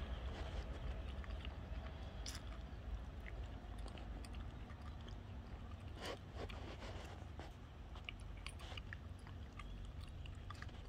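Street ambience: a low rumble that slowly fades over the first seconds, with scattered light clicks and scrapes close to the microphone, the densest cluster about six seconds in.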